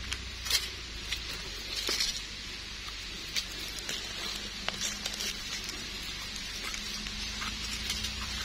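Dry leaf litter crackling and rustling under gloved hands as wild mushrooms are pulled up, with a small knife scraping soil off their stems. Scattered sharp little clicks and crackles, irregularly spaced.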